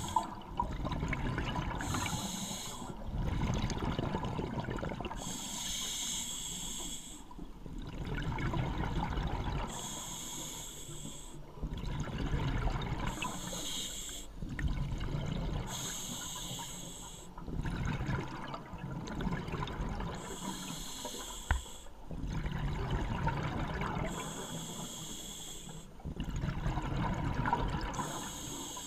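Scuba diver breathing through a regulator underwater. A hissing inhale comes about every three to four seconds, each followed by a low bubbling exhale.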